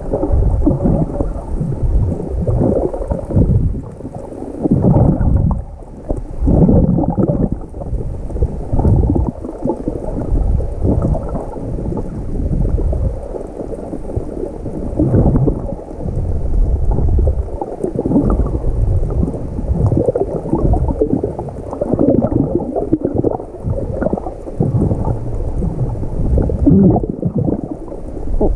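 Swimming strokes churning seawater, heard muffled through a camera in the water: low sloshing and gurgling that surges every second or two.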